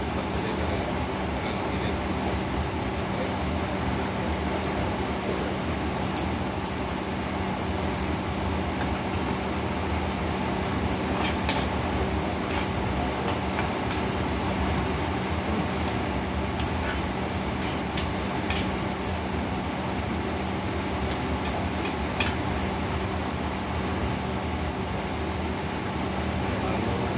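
Commercial kitchen exhaust hood fan running over a gas range: a steady rushing noise with a low hum. A metal spoon clicks against the skillet a few times in the second half.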